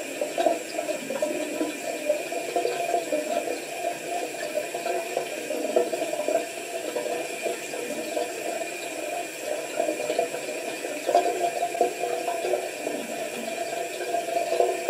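Bathroom tap running steadily into a sink, the water rushing without a break while the face is washed.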